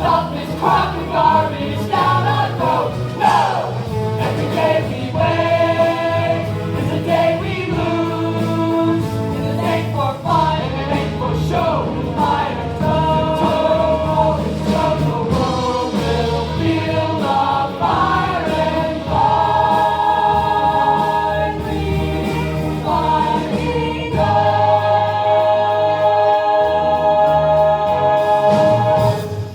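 Background music: a choir or ensemble singing with instrumental backing, ending on a long held chord near the end.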